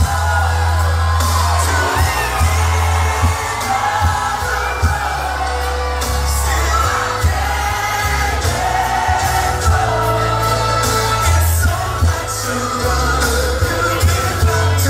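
A pop/R&B song with lead singing and a heavy bass line, played loud over a venue sound system, with audience whoops and shouts over it.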